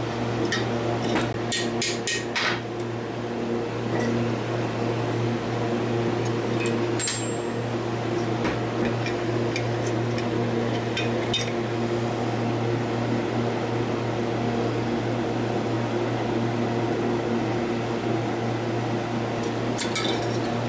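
Light metal clinks and taps as a piston is worked out of an old air compressor's finned cylinder, in short clusters near the start, about halfway and at the end, over a steady low hum from a fan or other shop machine.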